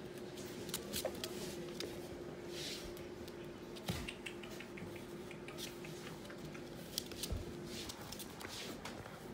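A puppy's claws clicking and pattering unevenly on a hard plank floor as it walks, with a soft thump about four seconds in as it flops flat. A faint steady hum runs underneath and stops about eight seconds in.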